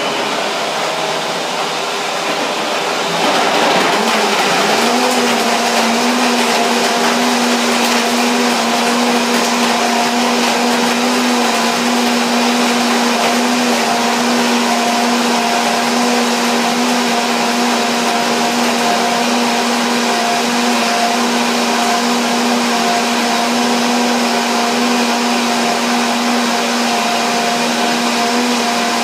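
High-speed countertop blender running, puréeing a green smoothie of kale, fruit and nut milk. About three seconds in it gets louder and its motor pitch rises, then holds steady.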